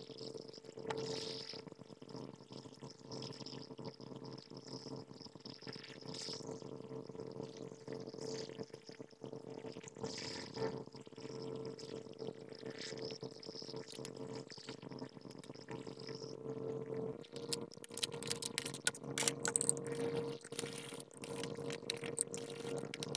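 Hot air rework station blowing: a steady hiss over a constant low hum, reflowing a replacement Super IO chip onto the motherboard. From about two-thirds of the way through, a run of light clicks and taps comes in.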